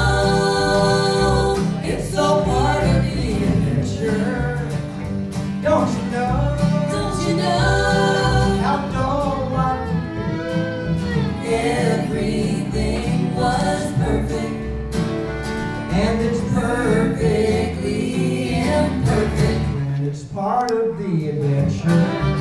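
Music: a voice singing held, wavering notes over guitar in a country or bluegrass style, with a steady bass beat.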